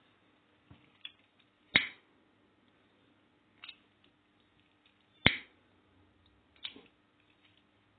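A few short, sharp clicks and taps from handling the crocheted bag while the end of its macramé handle cord is knotted, two of them louder than the rest.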